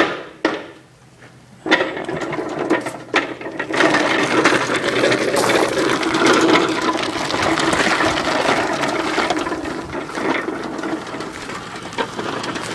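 Old crank-start Briggs & Stratton push-mower engine: a couple of knocks, then the engine catches just under two seconds in and keeps running steadily.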